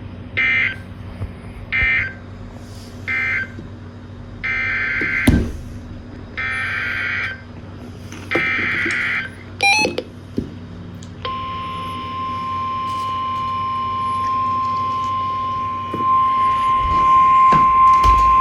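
Emergency Alert System data tones: three short end-of-message bursts, then three longer SAME header bursts for the next alert. After a brief pause comes a steady single-pitch weather radio warning alarm tone from about 11 seconds in, louder in the last couple of seconds.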